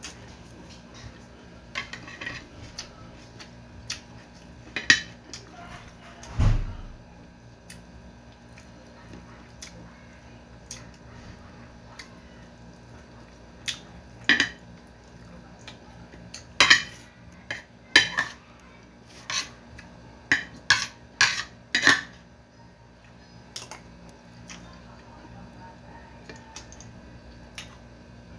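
A metal spoon clinking and scraping against a plate during a meal, in scattered sharp clicks with a quick run of them in the second half. A single dull thump about six seconds in.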